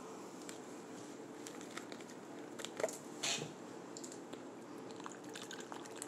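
Quiet handling of a carton of coconut water, with two short clicks about halfway through, over a faint steady hum. The water starts pouring onto a bowl of berries right at the end.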